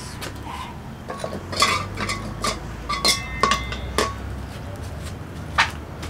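Metal spatula clinking and scraping in a dry wok on a wood-fired stove, before the oil goes in. A run of ringing clanks comes between about one and four seconds in, then one sharp clink near the end.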